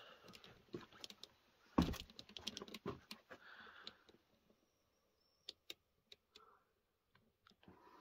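Footsteps on loose broken brick and dirt: a quick run of crunching clicks and knocks with one heavier thump about two seconds in, thinning to a few isolated ticks after about four seconds.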